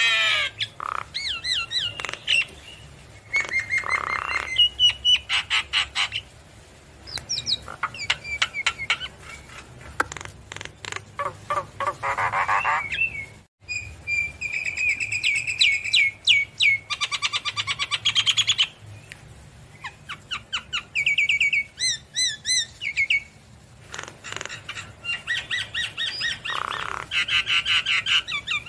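Javan myna singing a varied song: fast trains of chattering notes, clear whistled notes and a few harsh calls, in phrases a second or two long with short pauses between them. This is the full song of a bird in top singing form.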